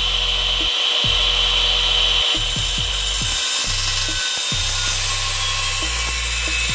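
Electric cut-off saw running with a steady high whine, its blade notching the end of an aluminium window profile.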